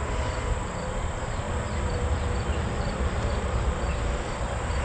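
Insects chirping in the background, a short high chirp repeating steadily, over a low rumble.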